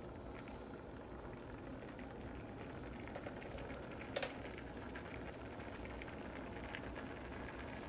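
Rice boiling in a pot of water: a steady bubbling with small crackling pops. A single sharp click about four seconds in.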